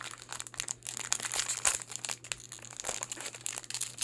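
Small foil blind-bag packet crinkling and crackling irregularly as it is worked open by hand.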